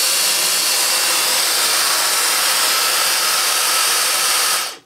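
Dyson DC35 Digital Slim cordless vacuum running with its motorised brush-bar floor head: a loud, steady rush of air with a faint high whine. It stops abruptly near the end, shutting off almost instantly.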